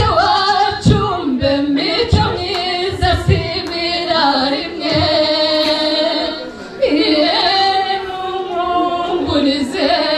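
Women singing a song together into microphones, with long held notes and wavering pitch. A few low thumps sound underneath.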